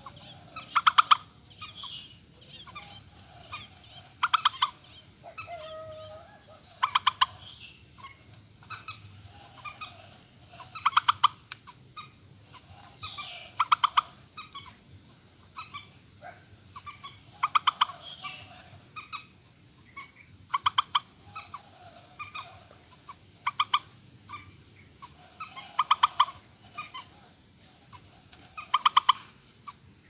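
Purple swamphen calling as a trap lure: a loud burst of rapid, sharp notes repeated about every three seconds, with softer calls in between.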